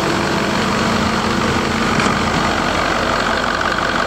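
Caterpillar 3208T turbocharged V8 diesel engine running steadily at idle, out of its vehicle.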